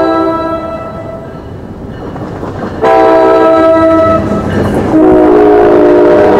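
Diesel-electric passenger locomotive's air horn blowing for a grade crossing over the rumble of the approaching train. One blast tails off in the first second. The horn sounds again about three seconds in and holds, its chord dropping lower about five seconds in as the locomotive reaches the crossing.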